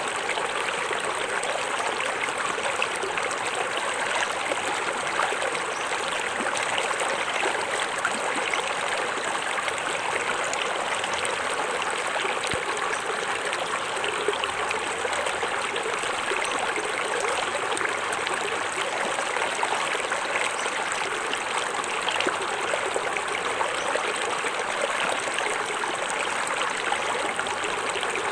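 Small forest waterfall: water pouring and splashing steadily over rocks, a constant even rush.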